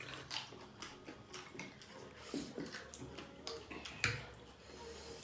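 Several people eating: chewing and lip-smacking, with spoons and forks clicking against ceramic plates and a sharper knock about four seconds in.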